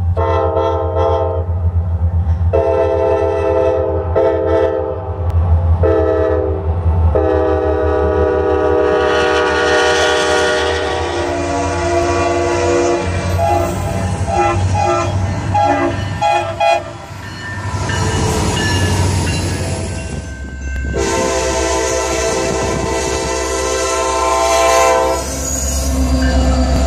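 Norfolk Southern GE C40-9W diesel locomotive's air horn blown in a long string of blasts of varying length, with a run of quick short toots in the middle and a long final blast. The locomotive's engine rumbles steadily underneath.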